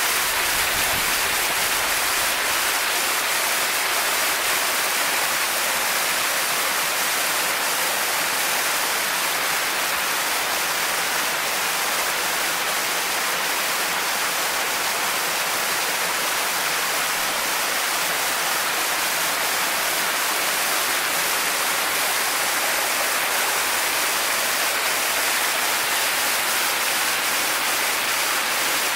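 Creek water pouring over a small waterfall: a steady, even rush with no change.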